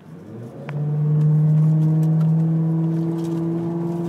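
Ford pickup truck's engine coming up in revs about half a second in, then held at a steady pitch under load as the truck climbs a sand hill.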